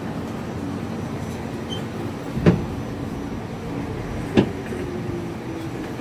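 New York City subway train heard from inside the car, running with a steady rumble and hum, with two sharp knocks about two seconds apart.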